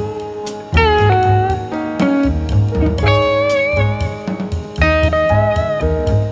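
Blues-style guitar music: plucked and bent guitar notes over bass and drums.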